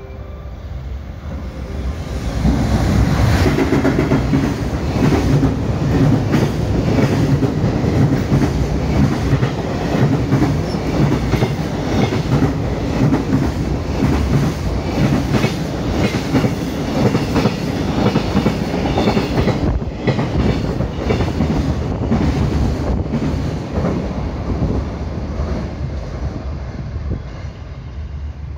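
A container freight train hauled by a JR Freight EF210 electric locomotive passes through a station at speed. Its rumble rises as it arrives about two seconds in, then the wagons' wheels clatter steadily over the rail joints as the containers go by. The sound eases off near the end.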